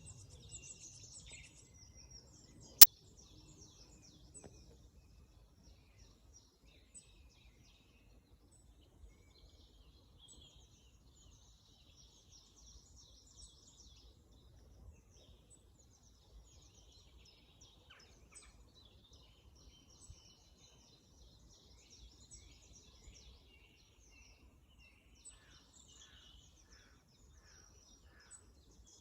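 Many songbirds singing over one another in woodland at dawn, a steady chorus of overlapping high songs and calls over a low background rumble. A single sharp click about three seconds in is the loudest sound, and near the end one bird repeats a short note about six times.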